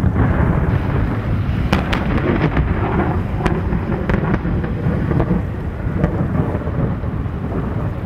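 Thunderstorm: a continuous low rumble of thunder with rain, and scattered sharp crackles.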